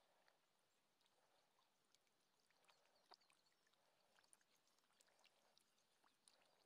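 Very faint splashing and scattered small ticks of catfish wriggling and flapping in a shallow muddy puddle.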